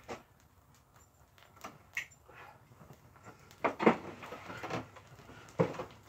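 Irregular crackles and pops from an old air-conditioner compressor burning and smoking, loudest a little under four seconds in. No motor hum: the compressor is not running.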